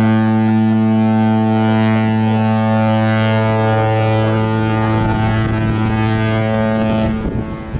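Holland America cruise ship's horn sounding one long, steady, deep blast that stops about seven seconds in.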